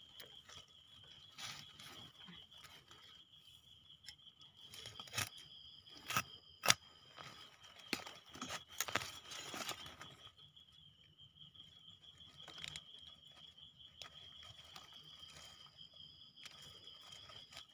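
Soil and leaf litter rustling and clicking as a hand digs out and plucks young termite mushrooms, with a few sharper snaps near the middle. A steady high insect trill runs underneath.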